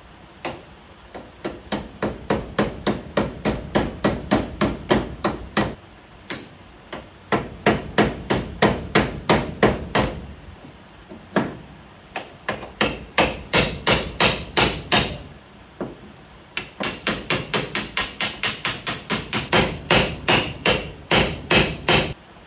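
A hammer strikes steel in four quick runs of blows, about three a second, with short pauses between them. It is driving the old pins or bushings out of a truck door hinge. The last run rings brighter and more metallic.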